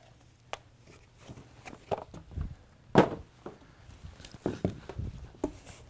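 Cardboard box and packaging being handled: scattered light knocks and scrapes, with one sharper knock about three seconds in.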